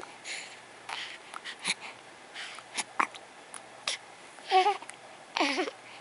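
Young baby cooing: two short voiced coos near the end, after a few seconds of soft breaths and small mouth clicks.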